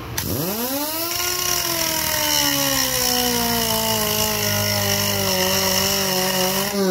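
A 7-inch pneumatic vertical grinder with a grinding wheel is started with a fast rising whine as it spins up to speed. It then grinds a steel plate, its pitch sinking slowly as the wheel bears on the metal, and starts to wind down at the very end.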